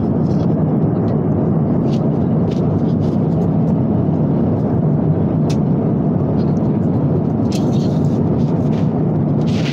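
Steady roar of an airliner cabin in cruise: engine and airflow noise inside the passenger cabin, with a few light clicks over it.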